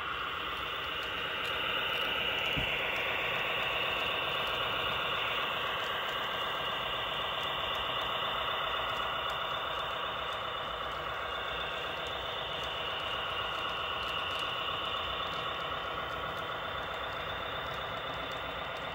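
Model train locomotive running steadily with a dense engine drone, a little louder from about two seconds in, as it climbs a grade.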